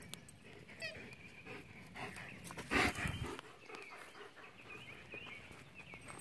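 A German Shepherd gives a single short, loud bark about three seconds in, with small birds chirping throughout.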